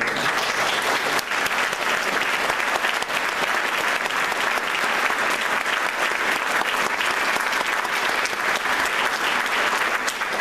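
Congregation applauding, a dense, steady clapping of many hands.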